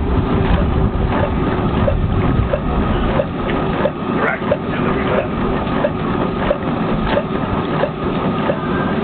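Homemade hot air (Stirling-cycle) engine running, with a regular light tick about twice a second over a steady low rumble.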